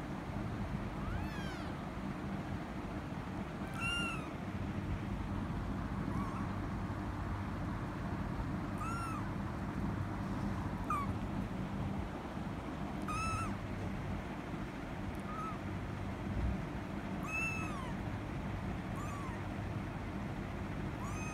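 Very young kitten mewing over and over: about ten short, high-pitched mews, each rising then falling, every couple of seconds. A steady low hum runs underneath.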